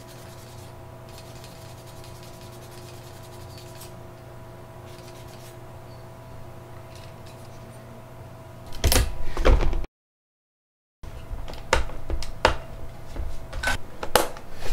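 PC parts being handled and fitted onto a motherboard. A steady low hum for about eight seconds, then a loud rubbing clatter near nine seconds, a brief cut to silence, and a run of sharp clicks and knocks as the stock Intel cooler and RAM sticks are pressed into place.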